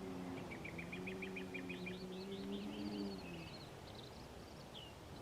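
Faint, long low cow moo lasting about three seconds. Small birds chirp and trill rapidly over it.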